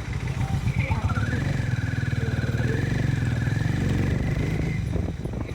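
Harley-Davidson X440 single-cylinder motorcycle engine running under way, its low pulsing exhaust note getting louder from about a second in and easing back near the end. A thin, wavering high whine sits over it.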